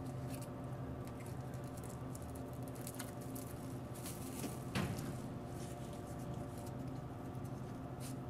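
Handling noise from a handheld camera during a pan: scattered small clicks and rubbing, with one louder knock about halfway through, over a steady mechanical hum.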